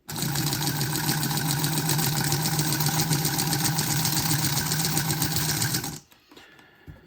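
Small electric motor and gear train of an HO-scale 4-8-4 steam locomotive chassis running under power in reverse, a steady buzz that cuts off suddenly about six seconds in. Its split-frame gears turn on swollen plastic isolators.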